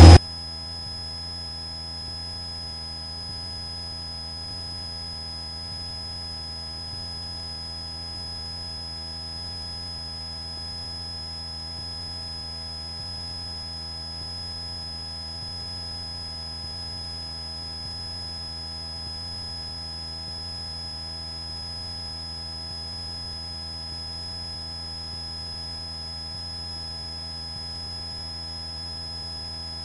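Steady electrical hum with a thin high-pitched whine on an aircraft intercom audio feed, unchanging throughout.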